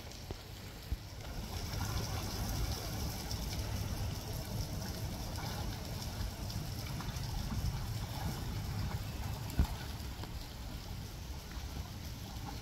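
Dogs splashing as they wade and swim in a pond, under a steady outdoor rumble and hiss, with a sharp tap late on.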